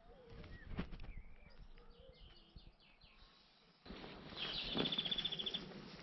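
Woodland songbirds calling, with short whistled notes and a quick run of chirps. About four seconds in, a louder noisy background comes in suddenly and a bird gives a fast, even trill of about ten notes lasting roughly a second.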